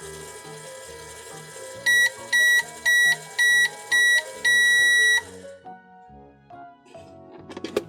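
Microwave timer beeping, five short beeps followed by one longer beep, over background music. A brief clatter of clicks comes near the end.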